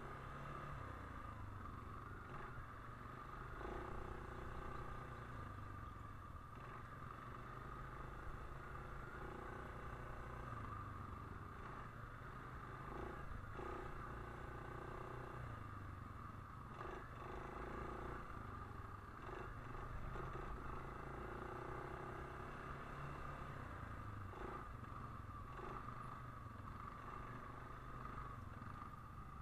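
ATV engine running steadily as the quad rolls along a dirt trail: a low drone whose pitch rises and falls a little with the throttle.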